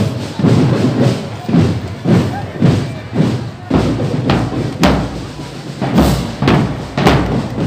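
Parade percussion music: drums struck on a steady beat of about two heavy strokes a second.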